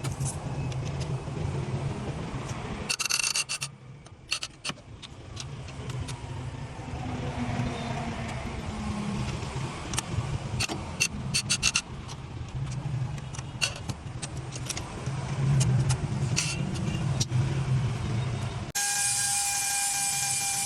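Car engine being cranked over by its starter without catching, a pulsing low churn with scattered clicks and a short pause about four seconds in; a valve fault keeps the engine from starting. Near the end it cuts suddenly to a different sound with steady tones.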